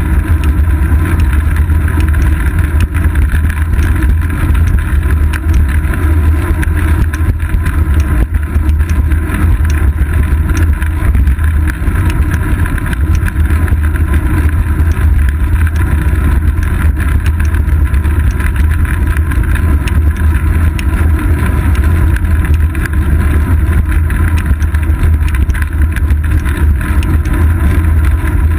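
Steady, loud rumble of wind buffeting and road vibration, picked up by a GoPro Hero 2 in its case on a bicycle's seat post while riding on asphalt, with faint scattered ticks.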